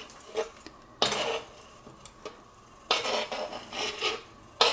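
Knife blade scraping grilled mushrooms and onions across a cutting board into a frying pan, in several short scrapes with the pieces tumbling into the pan.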